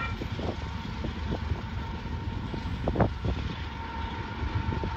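An approaching loaded freight train led by a Union Pacific ES44AC diesel locomotive: its train horn cuts off at the very start, leaving a steady low engine-and-wheel rumble with scattered clicks and a faint steady high squeal, one sharper click about three seconds in.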